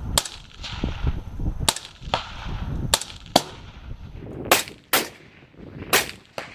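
Rifle shots at a shooting range: about eight sharp, loud cracks in quick succession, several coming in pairs about half a second apart, each with a short ringing tail.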